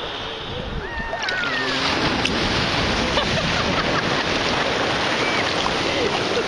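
Sea surf washing and splashing around people standing in the shallows, a steady rushing that grows fuller about two seconds in, with a short stretch of voice near the start.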